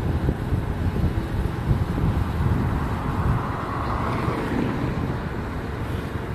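Wind buffeting the microphone of a moving motorcycle: a heavy, fluttering low rumble mixed with road noise, with a hiss that swells and fades about midway.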